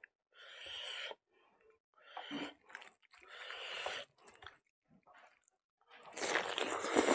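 A few heavy, hissy breaths about a second apart, then, near the end, a big handful of rice with dal and potato fry pushed into the mouth by hand, with loud mouth noise and chewing.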